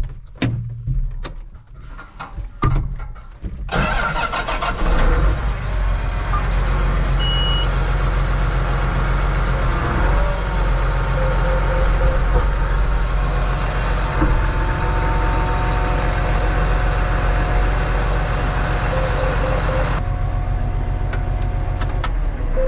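A few metal clanks and knocks, then a John Deere tractor's diesel engine cranks and catches about four seconds in and runs steadily.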